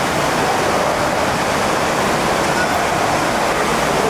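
Steady, even rushing noise, strongest in the middle range, with no distinct events or changes.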